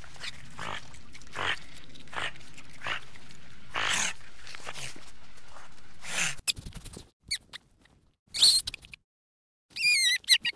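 An animal making short noisy puffs, roughly one a second, over a steady background. After a sudden cut come a few scattered sounds, then high squeaky calls that waver in pitch near the end.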